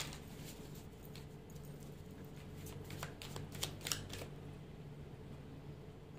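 A tarot deck being shuffled by hand: a run of light snaps and riffles of the card edges, thickest about two and a half to four seconds in, over a faint steady hum.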